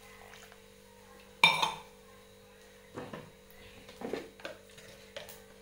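A stainless steel tumbler and kitchen utensils being set down and handled: one sharp metallic clink about a second and a half in, then a few lighter knocks.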